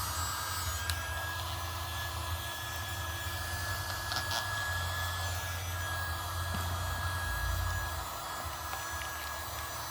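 Mini USB keyboard vacuum cleaner running steadily: a small motor's high whine over airy suction noise.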